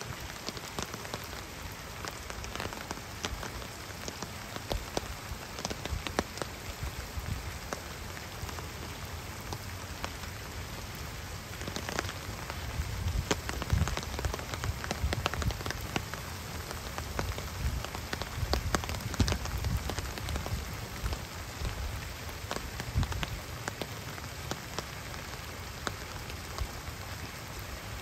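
Steady rain falling on a pond and wet grass, with many sharp drop taps close by.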